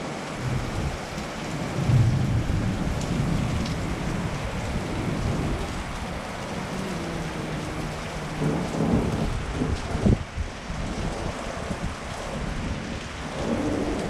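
Heavy rain pouring down onto a paved driveway and roofs, with low rumbles of thunder, the loudest about two seconds in.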